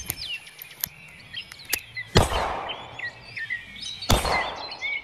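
Small birds chirping over and over, with a few sharp clicks early on and two brief bursts of rushing noise about two and four seconds in.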